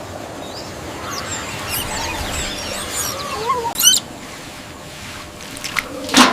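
Squeaky animal calls, rising and falling chirps over a couple of seconds, with a sharp bang about four seconds in and another near the end.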